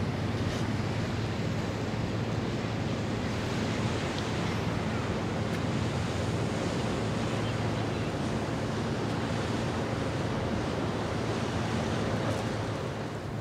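Steady wind on the microphone and the wash of water, over a low steady drone from the ships' engines.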